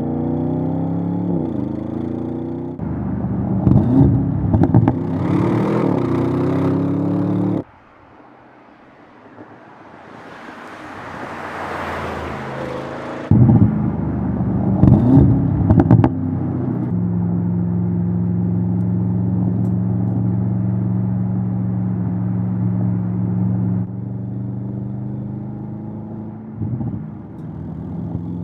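Audi RS7 Sportback Performance's 4.0-litre twin-turbo V8 and exhaust under hard acceleration, the engine note climbing in pitch through the gears with a few sharp exhaust cracks. In the middle comes a quieter stretch of rushing road noise that swells and cuts off, and later the engine holds a steady note while cruising.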